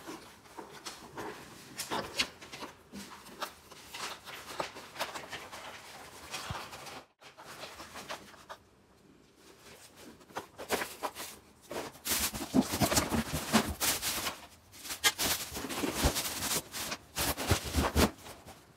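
Unboxing handling noise: scattered clicks and knocks as the plastic vacuum power head is turned over in the hands. From about twelve seconds in, louder crinkling and rustling of plastic wrap and cardboard as a wrapped part is pulled from the box.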